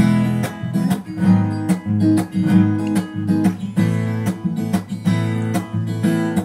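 Cutaway acoustic-electric guitar strummed in a steady rhythm, the chords ringing between strokes: an instrumental break in a slow pop love song.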